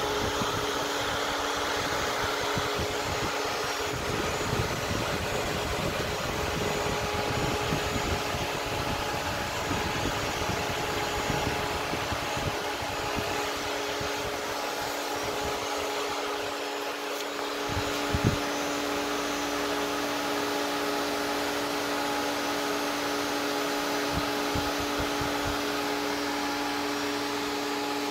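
Cooling fans of a dual-Xeon server board running at full speed, with the temperature sensor removed: a steady, loud rush of air with a steady hum of blade tones. Irregular low rumbling comes and goes through the first half, and there is one sharp click past the middle.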